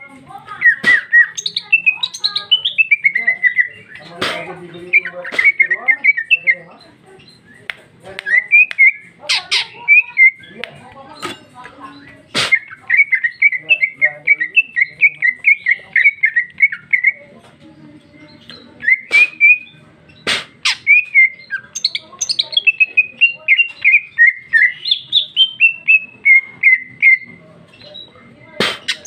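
Female greater green leafbird (cucak ijo) singing at full voice: long runs of fast chattering notes that rise and fall, broken by short pauses and by loud sharp clicks. It is the fluent, fill-rich song of a female in breeding condition calling for a male.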